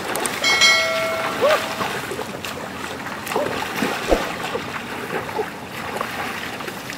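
Water splashing and sloshing as people wade through a shallow river, over a steady rush of flowing water.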